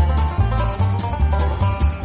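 Upbeat instrumental background music with a steady beat, a strong bass line and plucked strings.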